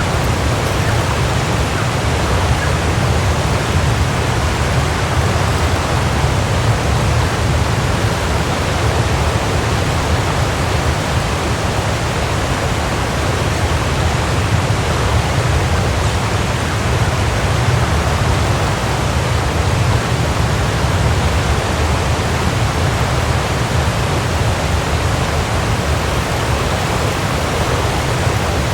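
Waterfall: water falling and crashing in a steady, unbroken rush, with a deep rumble underneath.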